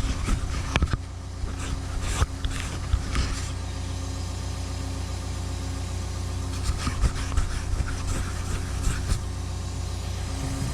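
Cat 314E excavator's diesel engine running steadily at a low idle-like hum, with a few sharp knocks and clicks scattered through.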